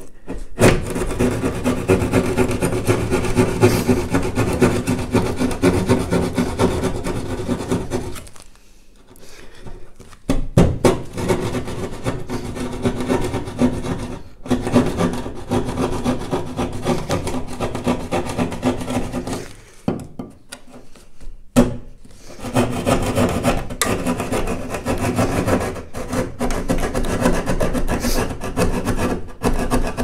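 Pad saw cutting through plasterboard in rapid back-and-forth strokes, stopping briefly twice, about a third and two thirds of the way through.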